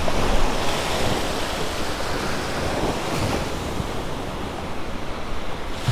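Small surf washing in over the sand in the shallows, a steady rushing wash of water, with wind buffeting the microphone.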